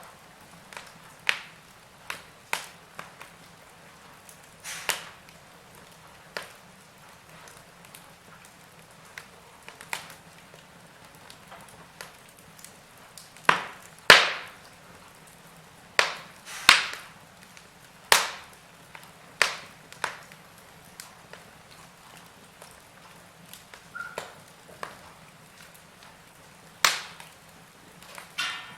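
Wood fire crackling in a fireplace: irregular sharp pops and snaps, a few seconds apart, over a faint steady hiss, with the loudest pops about halfway through.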